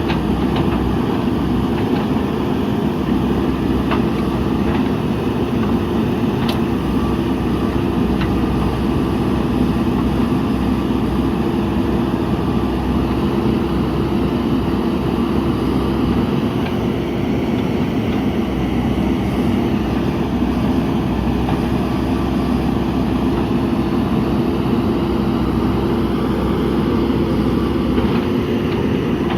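Diesel engine of a JCB backhoe loader running steadily as the machine works, with a few light clicks in the first several seconds.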